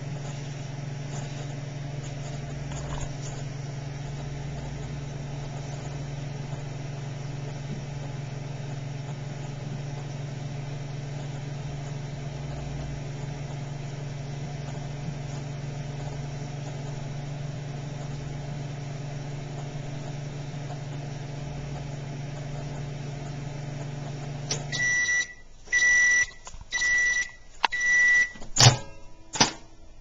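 GE countertop microwave oven running with a steady low hum, which cuts off about 25 seconds in. Four beeps follow, a second apart, signalling the end of the cycle, then a loud sharp clunk and a few lighter knocks.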